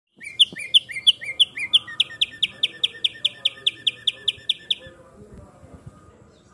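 Caged songbird known as tumba yegua singing one song: a series of about twenty clear whistled notes that speeds up. The first notes slur upward and come about three a second, the later ones are quicker and slur downward, and the song stops about five seconds in.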